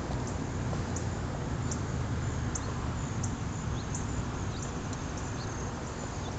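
Footsteps of shoes on an asphalt driveway at a walking pace, about three light steps every two seconds, over a steady low rumble.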